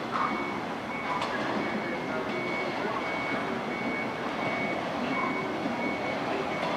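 JR West 113-series electric train rolling slowly in toward the platform, its wheels running on the rails with a steady rumble. A thin, steady high beeping tone runs over it, with a few short breaks.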